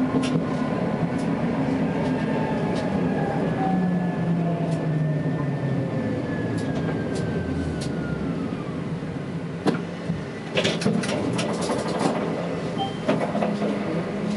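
Tatra T3S tram heard from the cab, its traction motors running with a whine that falls in pitch as the tram slows. Near the end the wheels give a run of sharp clicks and clacks.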